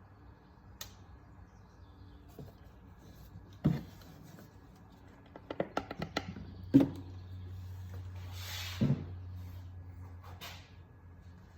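Knocks and clicks from handling the oil bottle, funnel and filler cap under the hood after topping up the engine oil: a few sharp knocks, a quick run of light clicks about halfway in, and a short rustle a little later.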